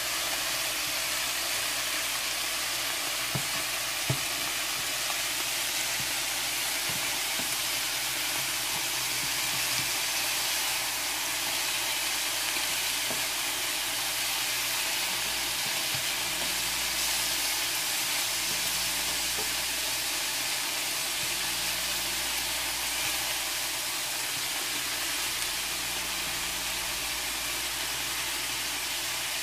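Ribs sizzling steadily as they sear in oil in a skillet, with a few light clicks of tongs turning the pieces.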